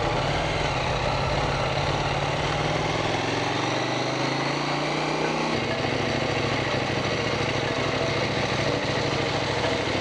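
KTM 790 Duke parallel-twin engine running steadily, its pitch shifting about four to five seconds in.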